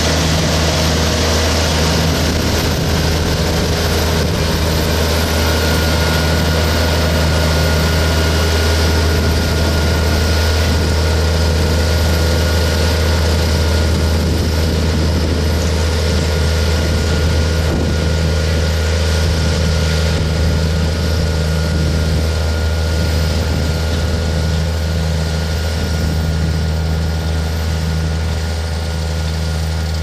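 Potato harvester at work: a heavy diesel engine drones steadily under a broad machinery noise, with a faint steady high whine above it, growing a little quieter near the end.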